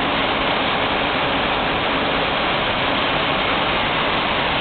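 Steady rushing hiss of cooling fans in a telecom equipment room, with the camera held close to a running DC power plant rectifier.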